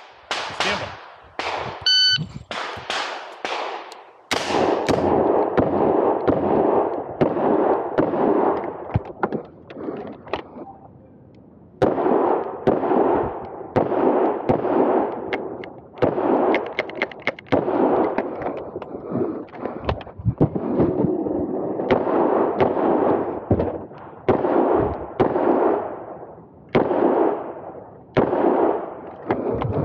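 Smith & Wesson 625 revolver firing string after string of shots on a competition stage, with a brief lull about ten seconds in. A short electronic beep sounds about two seconds in, the shot timer's start signal.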